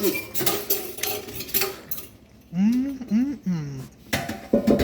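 Metal cookware and utensils clinking and knocking: a run of sharp clinks and knocks at the start and a few more near the end. Between them, a short voice rises and falls in pitch.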